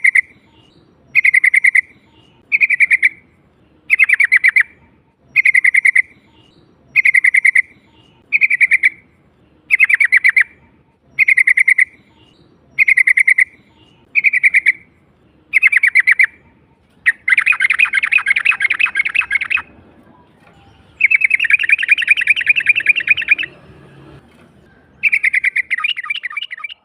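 Yellow-vented bulbul (trucukan) calling in its wild-type song. Short phrases of quick notes repeat about every one and a half seconds, then about two-thirds of the way through come three longer phrases of two to three seconds each.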